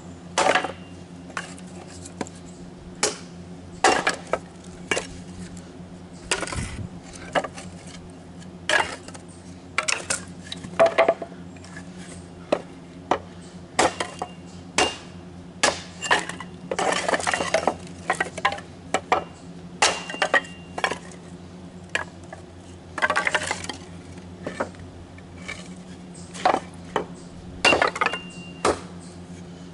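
Kindling being split with a blade: sharp, irregular knocks into wood, roughly one or two a second, with a few longer clattering stretches as pieces come apart and fall.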